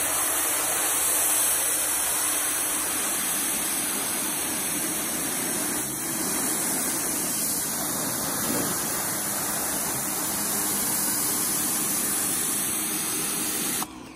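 Pressure washer spraying the fabric grids of a DE pool filter, a steady loud hiss of the water jet blasting algae off the cloth, which cuts off suddenly near the end as the trigger is released.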